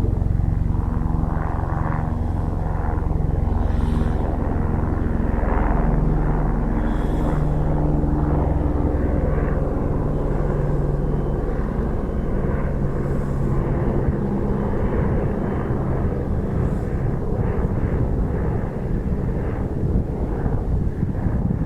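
Airbus H125 helicopter with its single turboshaft engine and main rotor running, a steady low rotor drone with a turbine hum. Its low pitched lines fade about halfway through, leaving a rougher, noisier rotor sound.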